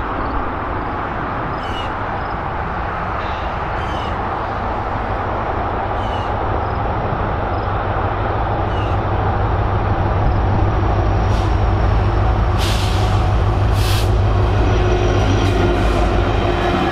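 Diesel freight locomotives led by Union Pacific's EMD SD70ACE 1988 approaching and passing, the deep engine rumble growing steadily louder as the lead units draw near. Two short hissing bursts come about two-thirds of the way through.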